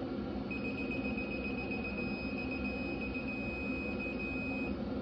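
Electronic torque wrench giving one steady high-pitched beep for about four seconds, signalling that the set torque has been reached.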